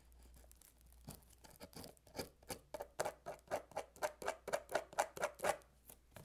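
A quick run of short, sharp scratching clicks, about four or five a second, as fingers or a cutter work at a cardboard tea box's packaging to get it open. The clicks start about two seconds in and stop shortly before the end.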